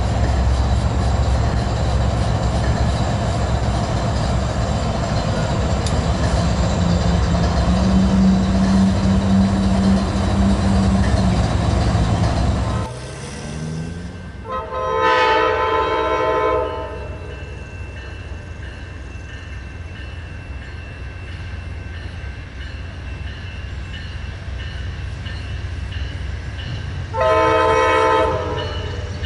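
Railcar wheels rumbling steadily on rail as a BNSF track-measurement car rolls by, cut off suddenly about 13 s in. Then an approaching Amtrak locomotive's air horn sounds twice: a long chord of about two seconds, and a shorter one near the end.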